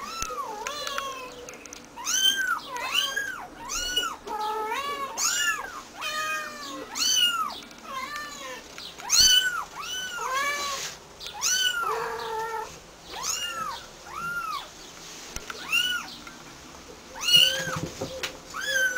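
Young kittens mewing: a run of high, thin meows, each rising then falling in pitch, about one a second, with two kittens' calls sometimes overlapping.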